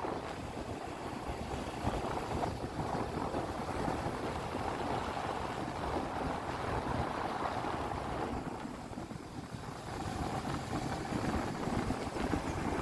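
Rumble and rush of a moving vehicle on the road, with wind buffeting the microphone; it eases off briefly about eight seconds in.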